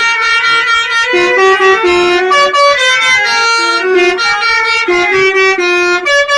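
Basuri musical vehicle horn playing a tune: loud, held notes with a rich, buzzy tone that step up and down in pitch every fraction of a second.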